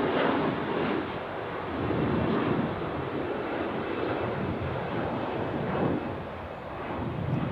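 Bombardier CRJ900's two rear-mounted GE CF34 turbofans at climb thrust just after takeoff: a steady jet rumble and rush that swells and eases every couple of seconds.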